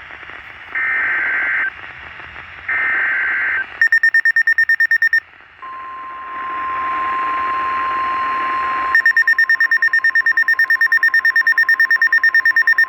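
Emergency Alert System tones on NOAA Weather Radio. First come two one-second bursts of the SAME digital header, a warbling two-tone data sound. Next is a few seconds of steady 1050 Hz warning alarm tone, signalling that a new warning follows. A rapid electronic beeping, about four beeps a second, sounds between the header and the tone, then starts again over the tone about nine seconds in.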